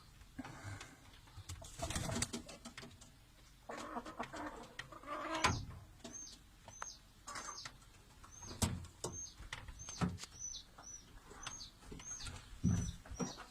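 Pigeons cooing softly, joined from about five seconds in by a run of short, high, downward-hooking chirps that repeat roughly twice a second, with an occasional click.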